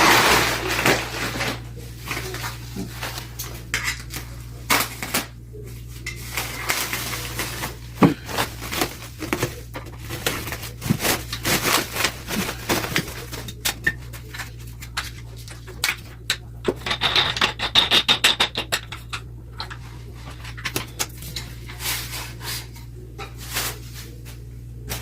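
Metal parts of a bike repair stand being unpacked and handled: irregular clinks, knocks and rubbing of metal on metal, with a burst of rustling at the start.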